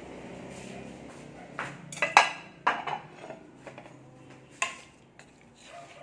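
Cookware and kitchen utensils clinking and clattering: a cluster of sharp knocks about two seconds in, and one more a little past the halfway point.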